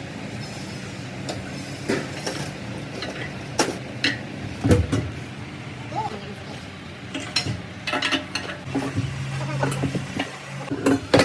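Workshop clatter: irregular metal knocks and clinks of tools and parts being handled, over a steady low machine hum.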